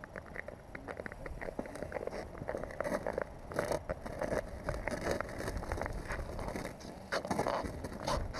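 Irregular light clicks and crunches on the ice, from gear being handled and boots stepping on the frozen surface, with louder clusters about three and a half seconds in and again near the end as a second person walks up.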